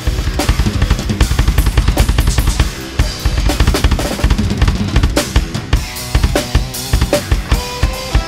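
Acoustic drum kit playing a fast, dense progressive-metal groove, with rapid bass drum hits and snare and cymbal strokes, over the recorded song's pitched instrumental backing.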